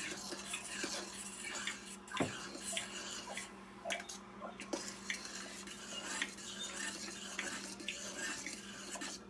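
A spoon stirring thickener into beef stew in a stainless steel saucepan, with frequent light clinks and scrapes against the pot, over a steady low hum.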